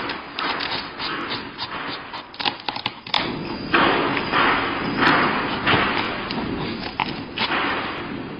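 A small dog's paws and claws tapping and thumping on a glass tabletop, with scuffling noise, many short taps throughout.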